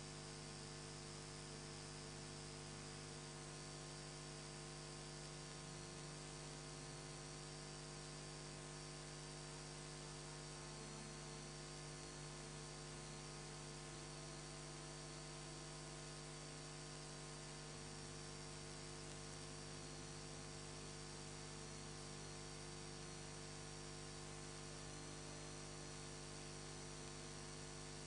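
Steady electrical mains hum with many fixed tones over a background hiss, and a faint wavering high whine above it.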